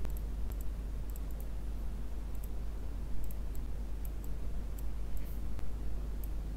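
Computer mouse clicking now and then, a dozen or so short, light clicks, over a steady low hum.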